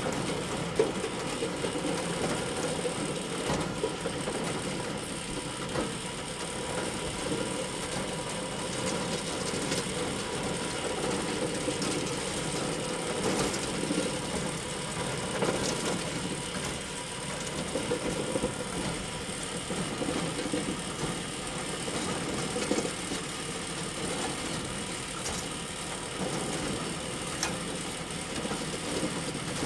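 Bale elevator, a farm chain conveyor for hay bales, running steadily with a continuous mechanical rattle and hum and occasional sharp clicks.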